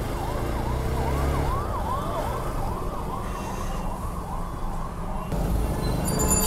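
An emergency-vehicle siren wailing in a fast yelp, rising and falling about three times a second, over a motorcycle engine running and the noise of surrounding traffic. The siren stops about five seconds in.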